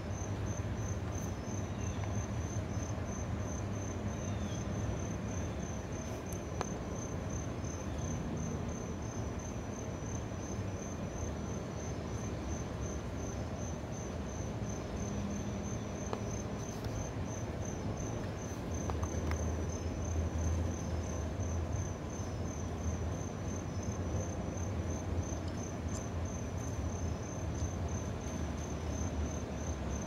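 A cricket chirping steadily, a long even run of short high chirps, over a low steady background hum.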